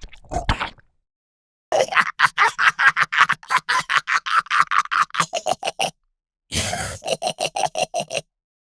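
Gremlin creature sound effect: a short grunt, then a long run of rapid chattering pulses at about seven a second. After a brief pause comes a second, shorter chattering burst.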